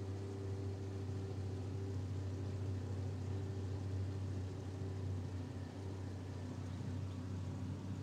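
Boat motor running steadily under way, a constant low drone with a fainter higher hum above it.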